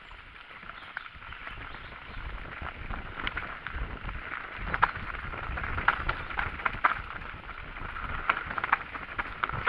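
Mountain bike rattling over a rough trail, with irregular clicks and knocks from the bike and a steady low rumble of wind on the microphone.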